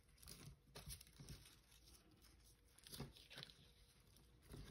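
Near silence with a few faint, scattered rustles of ribbon and card stock being handled.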